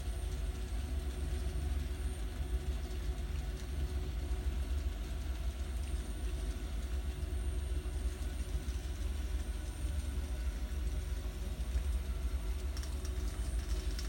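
N scale model train running on the layout: a steady, even low rumble with no breaks.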